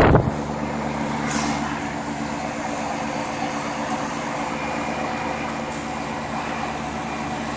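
Outdoor unit of a 1.5-ton 1986 Trane Executive Weathertron heat pump running in heating mode: a steady compressor hum with the whoosh of its condenser fan.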